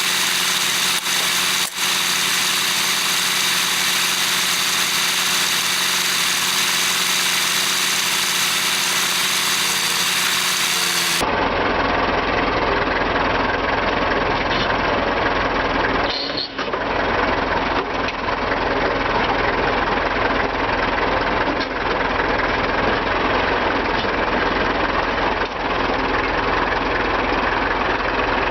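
An engine running steadily. About eleven seconds in the sound changes abruptly, turning duller and deeper.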